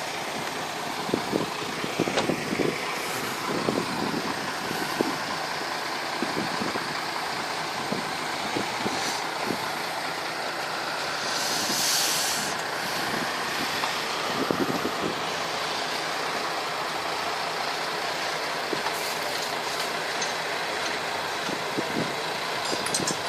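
Boat engine running steadily, with irregular low knocking through the noise and a short hiss about twelve seconds in.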